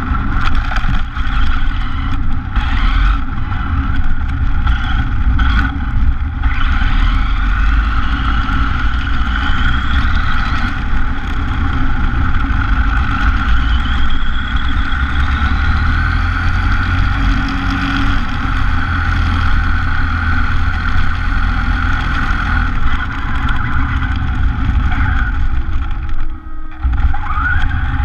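Onboard sound of a radio-controlled car driving on a road: a steady motor and gear whine, with a higher whine that rises and holds with speed, over a low rumble from the tyres and running gear. The sound dips briefly near the end.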